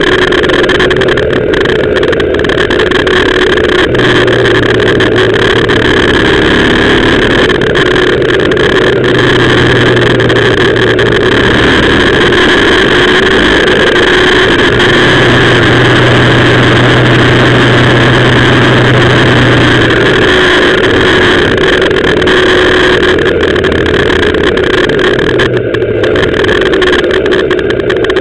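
BMW R 1200 GS Adventure's boxer-twin engine running under load on a steep mountain climb, heard through an onboard camera microphone along with wind and road noise. The engine note shifts a few times as the throttle changes.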